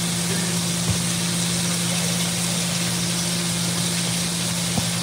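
Steady hum of a kitchen appliance fan running, a low drone with an even airy hiss over it that stays unchanged throughout.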